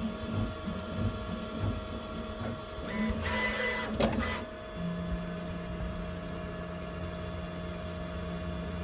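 Snapmaker U1 3D printer's motors moving at the end of a print, with a short burst of movement and a click around the middle; from about five seconds in a steady motor hum, the bed going down.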